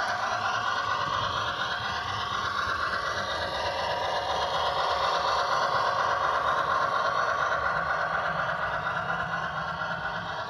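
HO scale model steam locomotive and train running along the track, a steady mechanical rolling noise that fades near the end as the train moves off.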